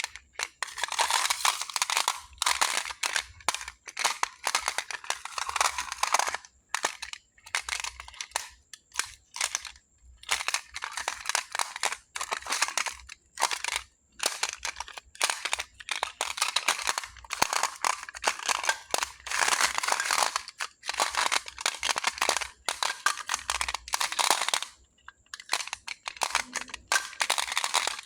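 Small pebbles being handled, clattering and crunching against each other in dense bursts of clicks, with short pauses between bursts.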